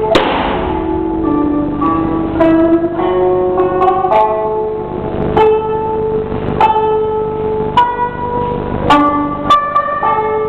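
Slow instrumental music on a plucked string instrument: single notes and short runs each start sharply and ring out, fading before the next, with one louder, brighter strike right at the start.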